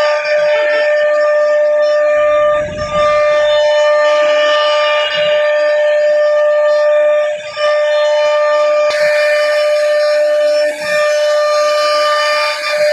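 CNC router spindle whining at a steady high pitch as it carves wood, with brief dips in level every couple of seconds.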